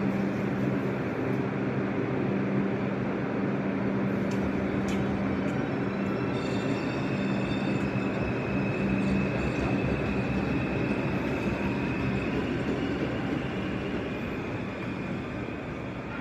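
R142 subway train running out of the station on the far track: a steady rumble of wheels on rail with a low hum. A high whine comes in about six seconds in and edges up in pitch, and the sound fades near the end as the train pulls away.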